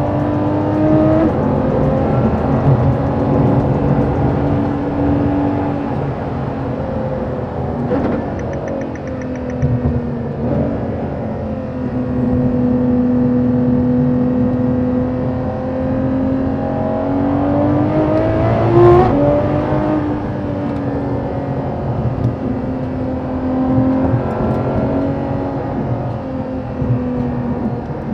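Ferrari LaFerrari's 6.3-litre V12 with a straight-piped RYFT titanium exhaust, running under way: a steady engine note that slowly rises and falls, climbing and then dropping suddenly about two-thirds of the way through, as at a gear change.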